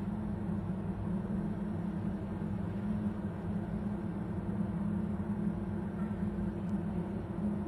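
Steady low droning hum over a noisy rumble, unchanging in level and pitch.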